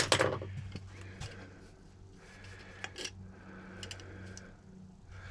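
Ceramic salt mill mechanism turned by hand while empty: a dry, gritty grinding rasp with small clicks, in a few turns.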